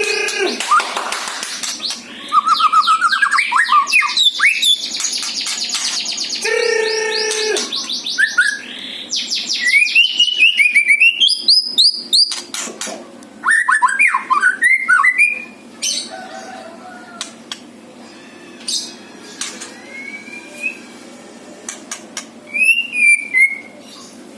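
White-rumped shama singing a varied song of clear gliding whistles, fast trills and harsh rattling notes. The song is dense and loud for the first two-thirds, then thins out into quieter, sparser phrases.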